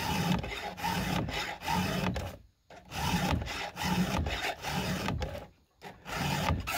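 A 7/32-inch round chainsaw file rasping across the cutter teeth of a Husqvarna 572 XP's chain in repeated hand strokes, each about half a second to a second long, with two short breaks as it moves on to the next tooth: sharpening the right-handed cutters.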